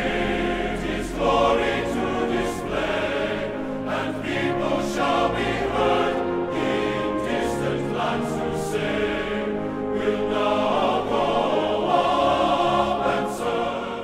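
Background music of a choir singing, sustained chords at a steady level.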